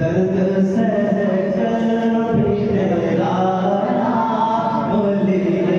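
A man singing a naat, an Islamic devotional poem in praise of the Prophet, into a microphone. He sings unaccompanied, holding long melodic notes and sliding between them.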